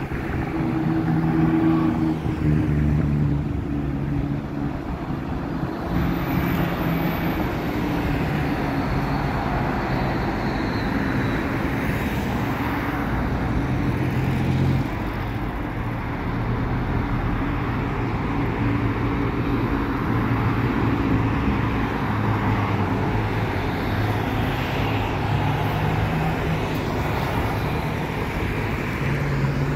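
Motor vehicle engine running steadily as the vehicle drives slowly along a road, with road noise and a low engine note that shifts in pitch a few times.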